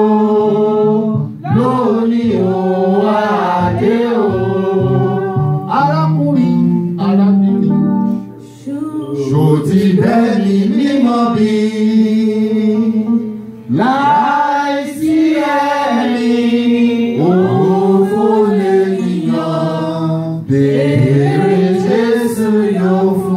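A man sings a Yoruba worship song in phrases into a microphone, amplified through the church PA, with a faint instrumental backing beneath his voice.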